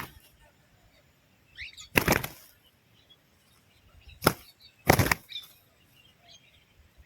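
Bird's wings flapping in three short loud flurries, about two seconds in and again twice close together near two-thirds of the way through, with a brief faint chirp just before the first.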